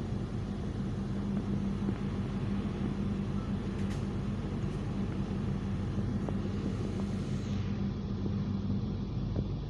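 Passenger train running: a steady low rumble with a constant hum and a few faint clicks.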